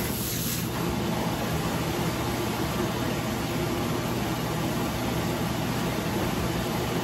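Kitchen faucet running a steady stream into a sink filling with soapy water, a constant even splashing hiss.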